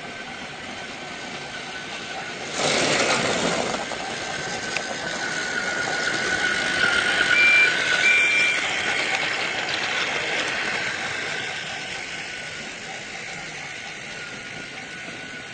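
An engine running and passing by, growing louder to a peak about eight seconds in and then fading away, with a steady high whine throughout. A sudden loud burst of noise comes about three seconds in, and two short high tones sound at the peak.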